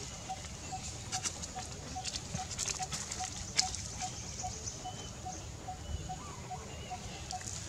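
Outdoor woodland ambience: a single short low note repeats evenly about two and a half times a second, over a steady high insect-like hiss. Scattered sharp clicks and crackles of dry leaf litter stand out, the loudest about three and a half seconds in, with a few faint short chirps.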